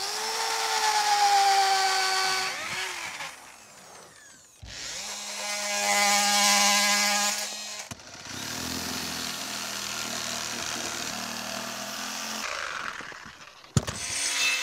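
Power drill with a long auger bit boring into a wooden repair block, its motor pitch sagging slightly under load. After a cut, a reciprocating saw runs steadily as it cuts through the wood.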